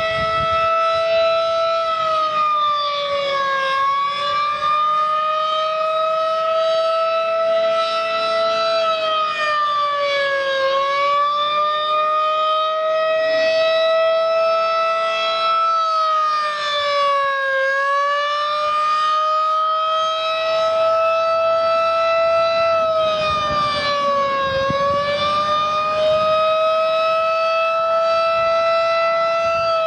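Federal Signal 2001 rotating electromechanical outdoor warning siren sounding a sustained steady tone for its monthly test. The pitch dips briefly about every seven seconds as the horn turns. The uploader calls it by far the quietest 2001 he has heard, too weak to blow the snow out of its horn.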